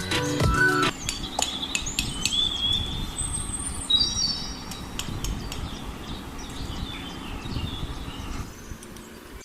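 Music stops about a second in, leaving a steady low background noise with scattered short, high bird-like chirps and a few light clicks.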